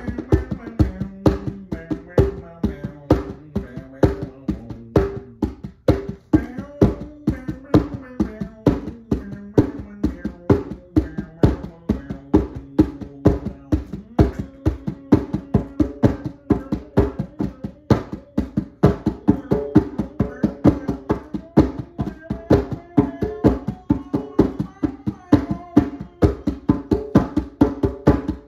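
A rope-tuned djembe played with bare hands in a steady, fast rhythm of about four strokes a second, with a low wavering pitched tone running underneath.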